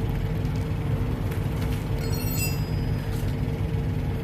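Semi-truck diesel engine idling steadily, with a few light clinks from the steel tire chain being handled on the drive tire.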